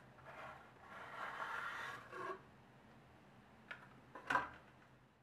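A cardboard matchbox holding wooden buttons being handled and opened: a soft scraping rustle for about a second, then a couple of light knocks as it is set down on a wooden table.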